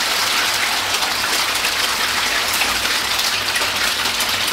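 Many koi fry splashing and churning the water surface as they crowd together, a steady patter of small splashes.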